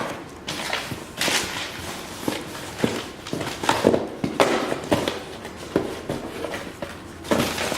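Packaged fishing tackle being handled and rummaged through: irregular plastic rustling and crinkling with light knocks and clicks.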